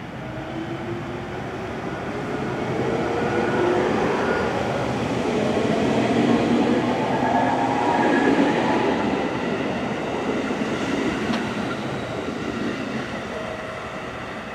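JR Kyushu 811 series electric train pulling away from the platform and passing close by, its traction motors whining in a glide that rises steadily in pitch as it accelerates. The passing noise swells to its loudest about halfway through, then eases as the train moves off.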